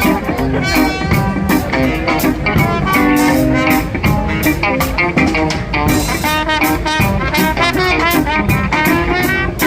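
Live band playing at a sound check: brass horns carrying the melody over guitar and a drum kit keeping a steady beat.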